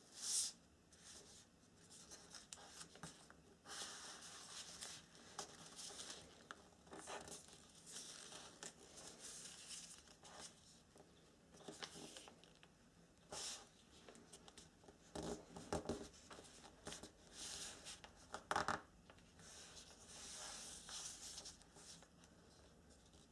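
Origami paper being folded and creased by hand: irregular short rustles and swishes of paper sliding and being pressed flat, with a few sharper crackles among them.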